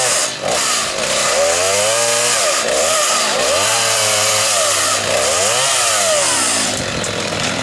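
Chainsaw cutting wood, its engine revving up and falling back three times as it makes successive cuts.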